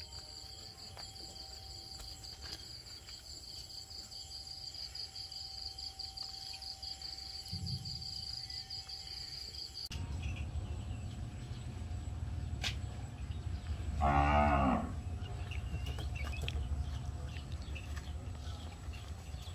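A cow moos once, loudly and for under a second, about two-thirds of the way in. Before it, a steady high pulsing buzz runs through the first half; after a cut, a low rumble continues under the moo.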